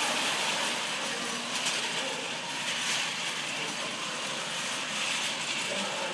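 FRC competition robot's electric drive motors and gearboxes running as it drives, a steady mechanical whir that eases off slightly as the robot moves away.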